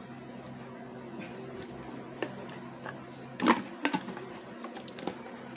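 A few sharp plastic clicks and knocks from handling a drink bottle and a snack tube, the loudest about three and a half seconds in, over a low steady hum.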